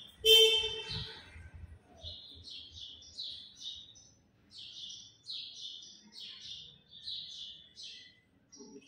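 Whiteboard marker squeaking in short high chirps, about two a second, as letters are written on the board. One louder, pitched squeak comes about half a second in.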